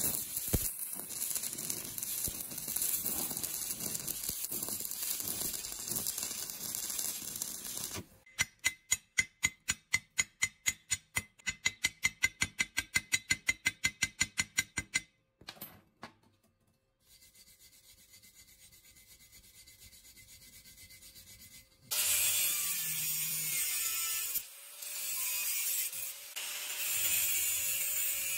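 Stick-welding arc crackling and hissing as the electrode lays a bead on a steel hinge and square tube, for about eight seconds. Then a chipping hammer knocks the slag off the weld, about three sharp blows a second for some seven seconds. After a short quiet, an angle grinder grinds the weld, its pitch wavering as it bears on the metal.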